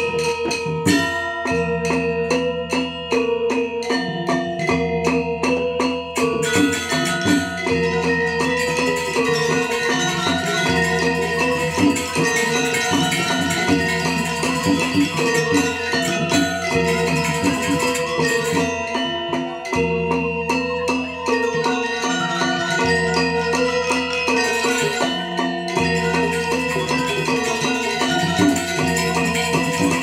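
Balinese gamelan orchestra playing dance music: bronze metallophones ring out interlocking pitched strikes over long low gong tones. The playing grows denser and faster about six seconds in.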